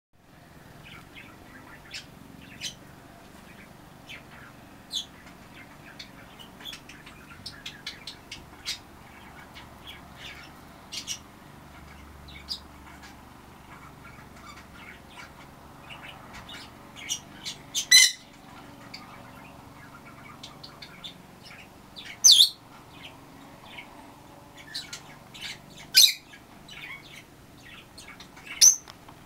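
Wild songbirds chirping and calling throughout. A louder, sharper call repeats about every four seconds in the second half.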